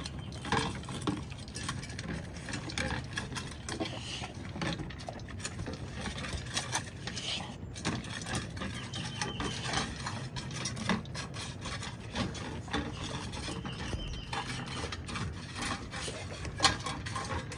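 Rottweiler puppy eating greedily from a stainless steel bowl on wooden deck boards: steady chewing with irregular clicks and clanks as its muzzle pushes the metal bowl around. The loudest clank comes near the end.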